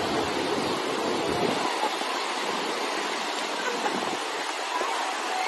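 Ocean surf on a beach: a steady rushing of breaking and washing waves. A low rumble underneath drops away a little under two seconds in.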